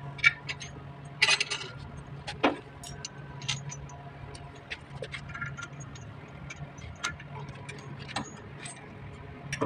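Metal bolts and nuts clinking and tapping against a flanged check valve as they are handled and fitted by hand, with irregular sharp clicks and a brief scrape about a second in, over a steady low hum.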